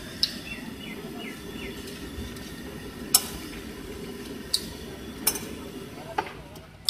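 Steady low hum of a street food stall with about five sharp metallic clinks of steel utensils spread through it, and a few faint short descending chirps in the first two seconds.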